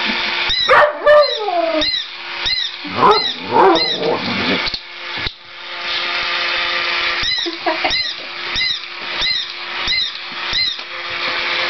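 Mechanical toy cat walking, its small motor whirring with a squeaky click at each step, about one and a half a second. It gives two falling meows in the first four seconds and a shorter one about eight seconds in.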